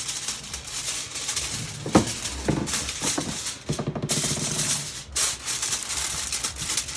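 Aluminium foil being crinkled and pressed down over a tray of salmon, a continuous crackling with short pauses.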